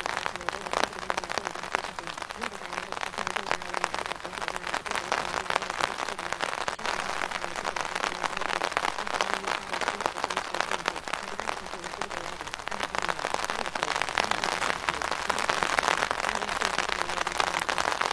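Steady rain sound: an even hiss full of tiny crackles, with a faint voice underneath it, the masked affirmations of a subliminal track.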